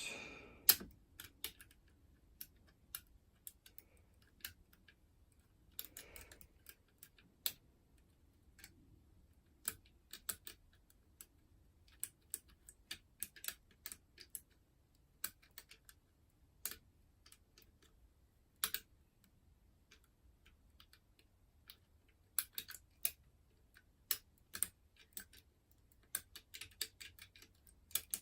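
Curtain pick and tension wire working inside an ERA Fortress five-lever mortice lock: irregular sharp metallic clicks and ticks, some in quick clusters, as the levers are picked.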